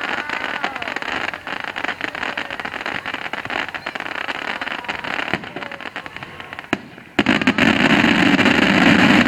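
Fireworks going off in a dense run of crackling pops, then a sudden louder, denser stretch of crackle and hiss about seven seconds in that stops near the end.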